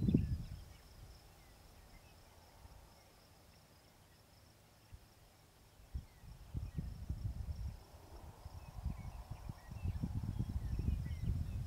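Insects trilling steadily in the grass, with gusts of wind rumbling on the microphone at the very start and again from about six seconds in.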